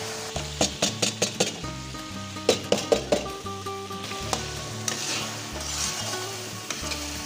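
Soaked mash daal (urad lentils) going into hot oil and masala in a metal wok, sizzling, with a metal spatula striking and scraping the pan in two quick runs of clicks as it is stirred in.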